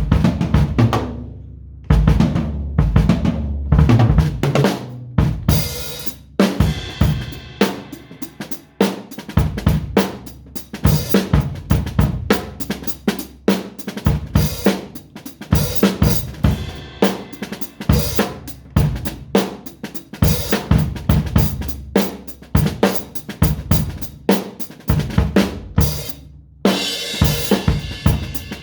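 Drum kit played in a busy, loose pattern of rapid snare and bass drum strikes mixed with cymbals. It breaks off briefly twice, about a second in and again near the end, then carries on with a wash of cymbals.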